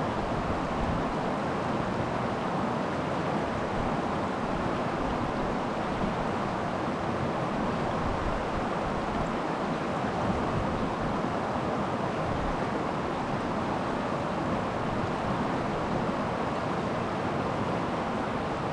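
Creek water rushing and splashing steadily.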